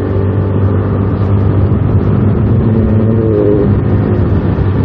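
Motorcycle engine running at riding speed, with steady wind and road noise from riding on a wet road; the engine pitch rises briefly about three seconds in.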